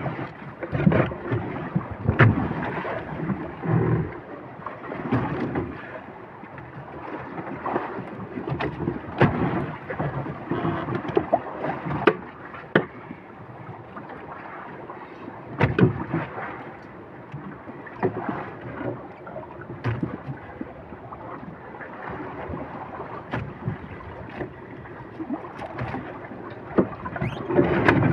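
Water lapping and slapping against the hull of a small fishing boat on open sea, with irregular knocks and clatter from the boat and gear. There is some wind on the microphone.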